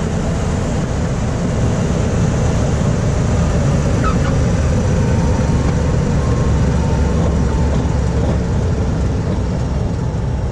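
Pitts S-1S biplane's engine running steadily at low power as the plane lands and rolls out on the runway. A brief chirp about four seconds in comes as the main wheels touch down.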